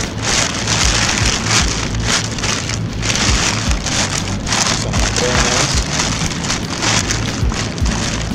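Crinkling and rustling of a foil-lined bag and its thin plastic liner being handled and opened by hand, a dense irregular crackle.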